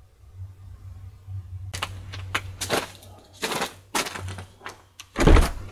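Footsteps crunching in snow, irregular steps about two to three a second starting a little under two seconds in, with a heavy low thump near the end.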